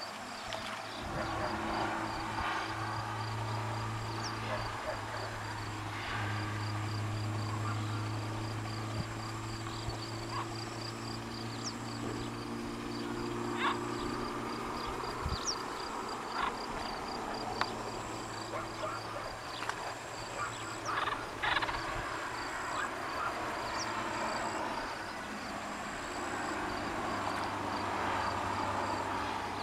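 Outdoor pond ambience: a low steady drone that drops out for a few seconds and returns, a rapid, even high-pitched pulsing throughout, and scattered short bird calls and clicks.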